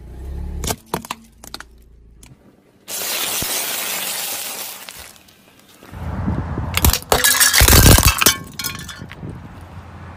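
Car tyre crushing brittle objects. A few sharp cracks come near the start as it presses down on a bowl, then a steady hiss for about two seconds. In the second half comes a loud run of cracking and shattering as a row of clear plastic measuring scoops breaks apart.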